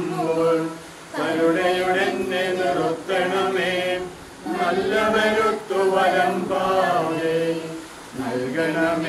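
Male voices chanting a Malayalam Christian funeral liturgy on sustained, intoned phrases, breaking off briefly three times between phrases.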